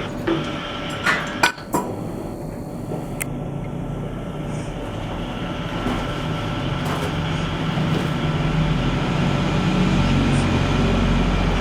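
Steady mechanical hum with a few sharp clicks and knocks in the first few seconds; a low rumble grows louder from about eight seconds in.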